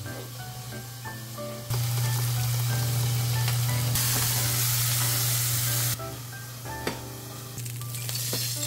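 Whole flatfish sizzling as it pan-fries in oil, a steady hiss that starts suddenly about two seconds in, grows louder and brighter, and stops about six seconds in. Soft background music plays before and after it.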